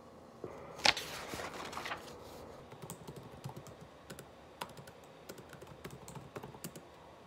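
Typing on a laptop keyboard: a run of quick, irregular soft key clicks. About a second in there is a sharp knock followed by a short rustle before the typing settles in.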